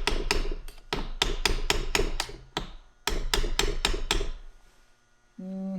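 Rapid light hammer taps driving a fitting into the lid of a Decked truck tool box, about four or five strikes a second. They come in two runs with a short break between, then stop about four seconds in.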